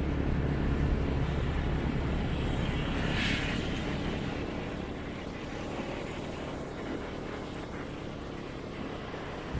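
Motorcycle engine running steadily while riding, with road and wind noise. The low engine hum eases after about four seconds, and there is a brief hiss about three seconds in.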